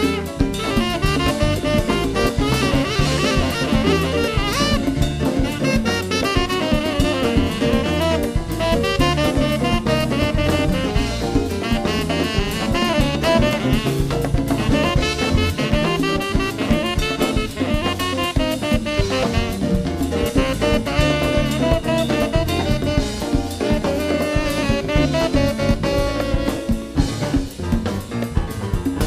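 Live Latin jazz band playing a mambo: a saxophone carries the lead over drum kit, congas, electric bass and keyboard.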